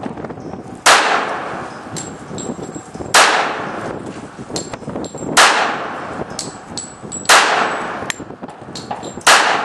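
Smith & Wesson M&P45 pistol firing five rounds of .45 ACP, one shot about every two seconds, each shot dying away over about a second. Fainter ticks come between the shots.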